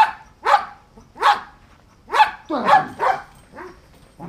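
Belgian Malinois barking over and over: a run of about seven short, sharp barks, roughly two a second and spaced unevenly.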